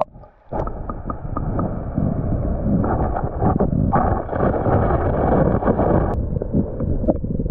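Stream water rushing, heard muffled through a camera in the water, with many bumps and knocks. It starts suddenly about half a second in, and the higher hiss drops away about six seconds in.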